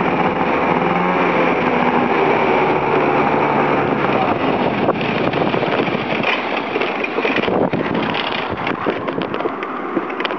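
Yamaha Neo's 49cc scooter engine running while riding, its note wavering a little. It is running with a fault at low revs. After about five seconds the steady note gives way to a rougher, rattling noise with scattered clicks.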